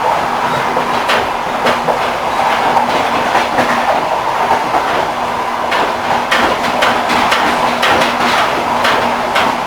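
Railway carriage wheels knocking over rail joints: clickety-clack in irregular clusters of sharp knocks, over the steady running noise and low hum of a moving train.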